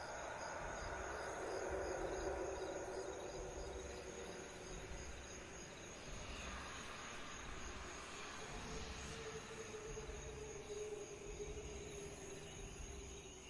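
Night insects, crickets trilling steadily in a high, even pulsing chorus, over a lower drone.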